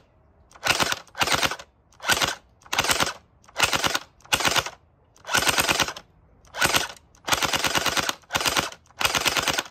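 Battery-powered Gel Blaster Starfire XL gel blaster firing on full auto at full power: about eleven short bursts in a row, each a rapid rattle of shots lasting well under a second, with one longer burst near the end.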